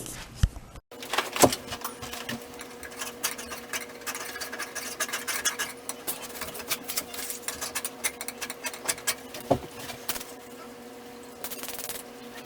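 A steady mechanical hum, like a small motor, starting about a second in, with irregular clicking and rattling over it and a few sharper knocks.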